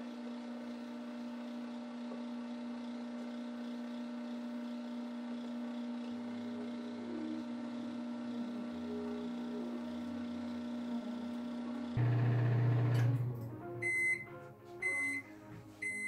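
Brastemp microwave oven running with a steady hum. About twelve seconds in the hum stops with a short, louder low rumble. Then three short high beeps, about a second apart, signal the end of the heating cycle.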